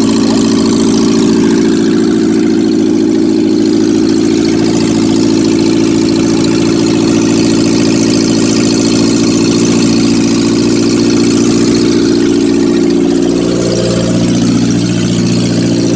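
1990 Geo Tracker's 1.6-litre four-cylinder engine running steadily, with a brief change in pitch and level about thirteen seconds in.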